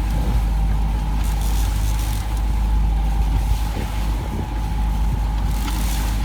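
A boat's motor running steadily: a constant low rumble with a thin, steady whine above it.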